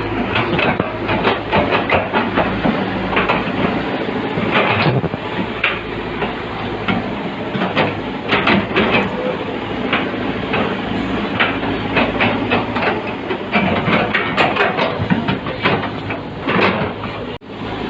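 Heavy construction machine's diesel engine running steadily, with frequent clanks and scrapes of metal and rock over it; the sound cuts out for an instant near the end.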